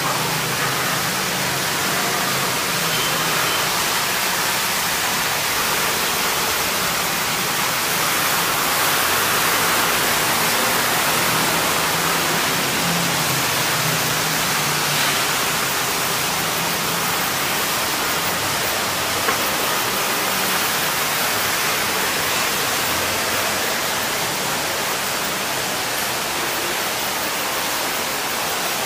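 Steady, even hiss with no clear events, the same outdoors and indoors, with one short click about nineteen seconds in.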